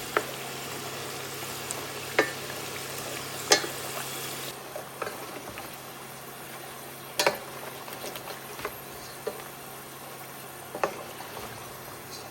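Food sizzling in a frying pan, with a utensil knocking and scraping against the pan every second or two.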